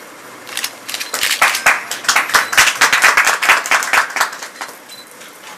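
Audience applauding: irregular handclaps start about half a second in, build quickly and die away after about four seconds.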